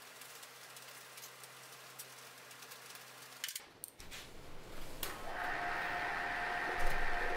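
Faint clicks of a steel workpiece being handled in a vise, then, about five seconds in, the Bridgeport mill's spindle comes up to speed and runs steadily with a whine at two pitches, driving a 5/8-inch drill bit.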